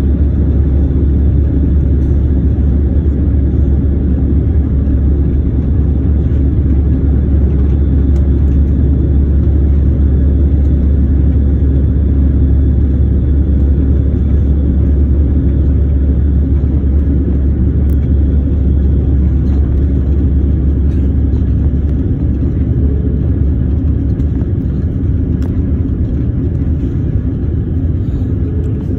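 Steady low rumble of jet engines and rushing air heard inside an airliner cabin during descent.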